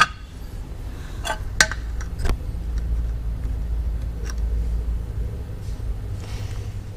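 Clutch throw-out bearings and the steel release fork being handled on a concrete floor: a few sharp metal clicks and clinks, mostly in the first half, over a steady low rumble.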